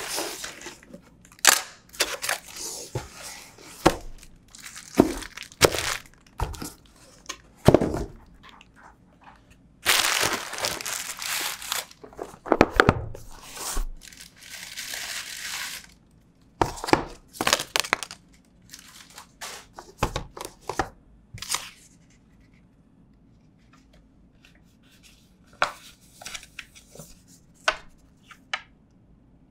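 Smartphone retail box being opened by hand: plastic wrap and paper packaging tearing and crinkling, with cardboard clicks and knocks. A longer tearing rustle comes about ten seconds in, and the handling turns to faint, sparse taps in the last third.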